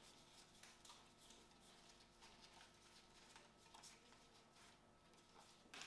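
Near silence: faint rustles and small ticks of a stack of board-game cards being fanned through by hand, with one slightly louder click near the end.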